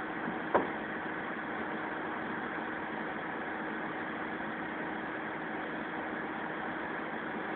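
Diesel engine of a Kato truck crane idling steadily, with a single sharp knock about half a second in.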